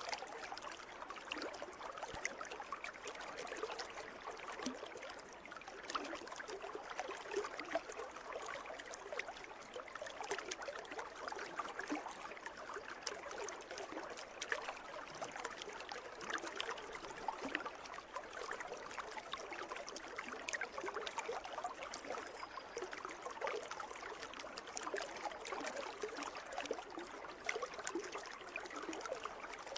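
Water moving in a pool: a steady wash of many small splashes and drips, keeping an even level throughout.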